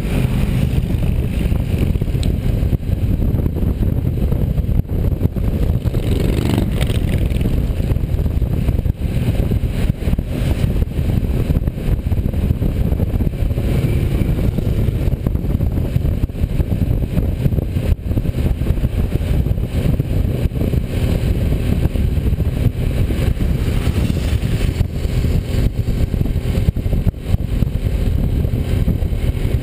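A motorcycle riding steadily at road speed, heard from a camera worn by the rider: a constant engine and road drone, with wind rushing over the microphone.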